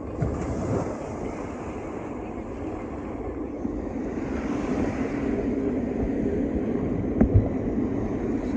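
Wind buffeting the microphone with a steady low rumble, and two quick thumps about seven seconds in.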